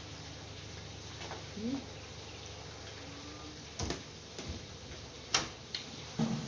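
Eating sounds: a handful of short sharp clicks and taps as food is picked up by hand from plastic takeout containers and chewed, the loudest about five and a half seconds in, over a steady background hiss.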